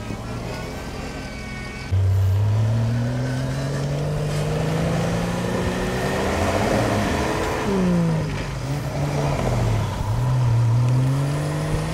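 A 4x4's engine revving hard as the vehicle tries to drive out of deep snow with its wheels spinning. It cuts in loudly about two seconds in, climbs slowly in pitch, drops away about eight seconds in, then climbs again.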